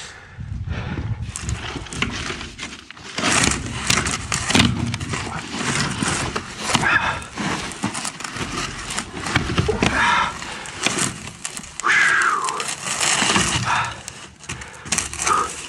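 Black corrugated 6-inch plastic drain pipe being handled and forced into a plastic fitting: irregular clicks, rattles and crackles of the ribbed pipe, with a few short squeaks and footsteps on dirt.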